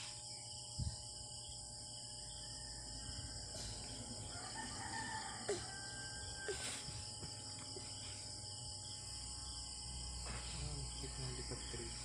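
Quiet room background with a steady high-pitched insect drone, and a faint distant rooster crowing about four seconds in. A few soft knocks come from handling.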